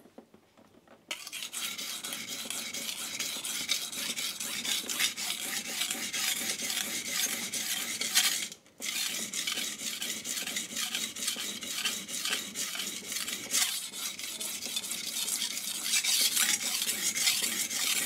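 Steel knife blade being sharpened on a wet King G-45 220-grit whetstone: quick back-and-forth strokes grinding on the coarse stone, starting about a second in, with one short pause about halfway.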